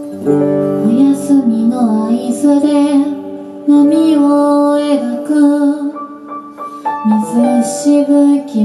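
A woman singing a melody with long held notes, accompanied by acoustic guitar and grand piano.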